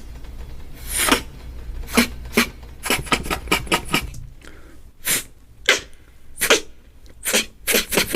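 Beatboxer making anime-style sound effects with the mouth: a string of short, sharp, breathy bursts and hisses, coming faster near the end.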